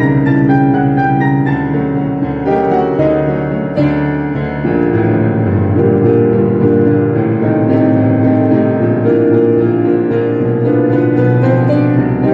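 Piano music: a stepping run of notes in the first couple of seconds, then fuller, held chords with a melody over them.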